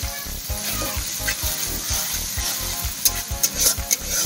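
Sliced onions sizzling in hot oil in an iron kadai while a metal spatula stirs and scrapes them, with a few sharp clicks of the spatula against the pan near the end. A regular low beat and held tones of background music run underneath.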